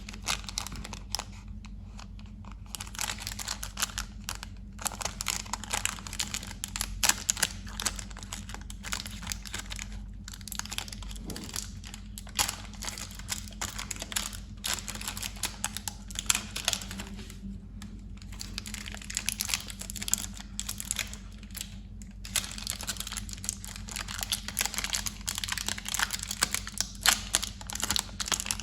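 Candy wrappers crinkling and crackling as candies are unwrapped and handled, in dense irregular bursts with short pauses, over a steady low hum.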